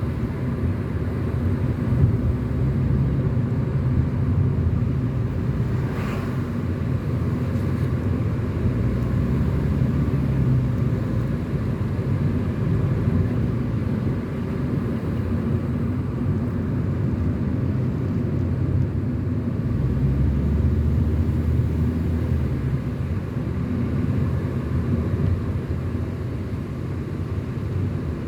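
Car being driven at a steady speed of about 50 km/h, its engine and tyre noise making a continuous low drone.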